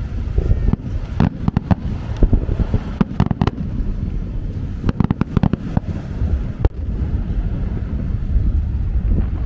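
Fireworks bursting in quick clusters of sharp bangs and crackles, with a last single bang near the end, over a steady low rumble.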